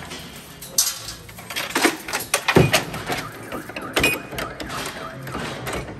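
Irregular clatter of hard objects being handled: a run of sharp knocks and clicks, the loudest about two and a half seconds in and another at about four seconds.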